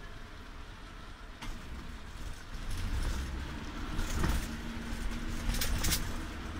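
Interior ride noise of a moving road vehicle: a low rumble of engine and tyres that grows louder about three seconds in, with a steady hum through the middle and a few sharp knocks, two close together near the end.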